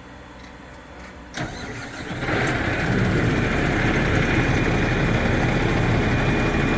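Crane truck's engine starting: a sharp click, then the engine catches about two seconds in and settles into a steady, much louder run.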